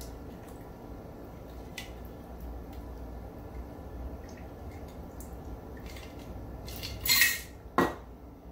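A stirred martini trickles out of a metal cocktail shaker tin into a glass. Near the end comes a short, loud clatter and then a sharp knock as the metal tin is put down on the bar.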